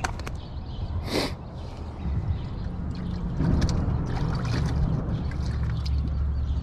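Water splashing and trickling in a bass boat's livewell as fish are handled in it, with a few light knocks, over a steady low rumble.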